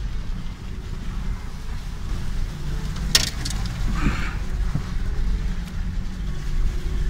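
Off-road vehicle driving over a rough, muddy forest track, heard from inside the cabin: a steady low engine and drivetrain rumble. A sharp knock comes about three seconds in, with a short burst of noise just after.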